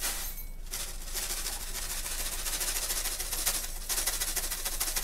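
Coarse kosher sea salt pouring from its cardboard box into a metal measuring spoon: a dense hiss of many tiny grain ticks. It starts just under a second in, runs about three seconds, breaks off briefly, then pours again for about a second.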